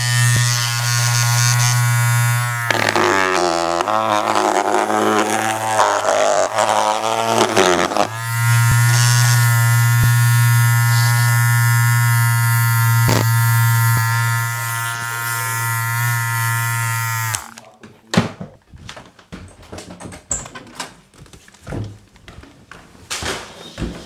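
A small electric motor appliance buzzing steadily. Its tone wavers and shifts for a few seconds about a third of the way in, then it switches off suddenly about two-thirds through, leaving a few faint clicks and knocks.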